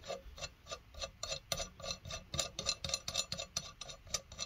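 A steel lug nut spun by hand along a wheel stud's threads, giving a quick run of small metallic clicks and ticks, about five or six a second.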